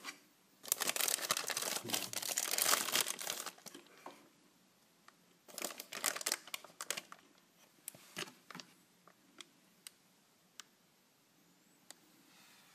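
Clear plastic bag around a welding-wire spool crinkling as a hand grips and handles it. There are two bursts of crackling, the first about a second in and lasting about three seconds, the second about five and a half seconds in, and then scattered small crackles and clicks.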